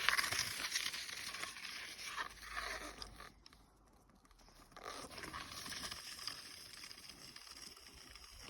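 Cold, dry snow creaking and crunching under pressure, with a short lull about three and a half seconds in before the crunching starts again.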